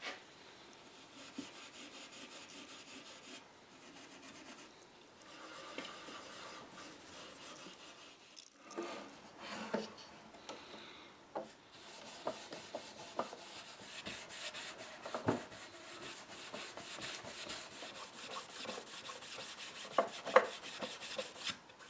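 Brown paste wax being rubbed by hand into the veneered wooden hood of an antique tall case clock: a steady scratchy scrubbing that pauses briefly about eight seconds in, then comes back with quicker strokes and a few light knocks.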